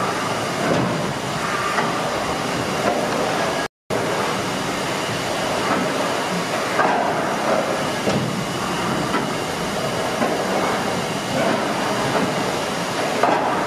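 1868 steam beam engine running, with a steady mechanical clatter and hiss from its rods and valve gear. The sound breaks off for an instant about four seconds in.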